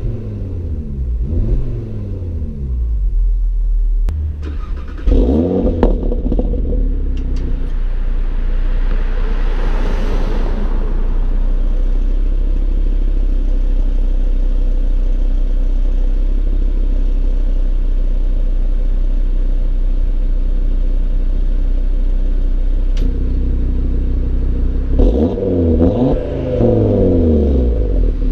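2018 Audi RS3's turbocharged 2.5-litre five-cylinder engine accelerating hard through several gears, its pitch climbing and dropping at each shift near the start and again near the end. In between it runs steadily at cruising speed, with a brief rushing noise around ten seconds in.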